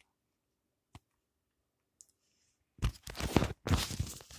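A single click about a second in, then loud, irregular rustling and crunching noises close to the microphone during the last second and a half.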